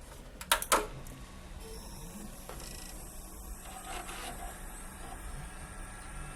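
Two sharp clicks about half a second in, then a desktop computer starts up and runs with a steady high-pitched whine over a low hum. This is the unexplained noise that remains with the graphics card removed, which the owner suspects comes from the liquid-cooling radiator.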